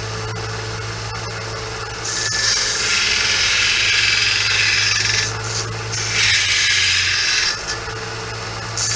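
Electric sander running with a steady hum, and a steel saw-blade knife blank pressed against the abrasive in passes, making a loud rasping grind. Three grinding passes: one starting about two seconds in and lasting about three seconds, a shorter one in the second half, and another beginning near the end.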